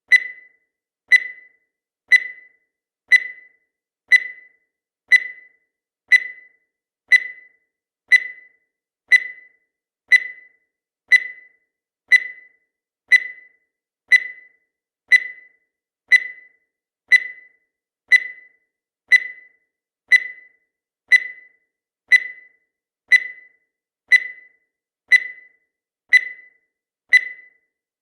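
Countdown timer sound effect: one short high electronic beep every second, each fading away quickly, at a perfectly even pace.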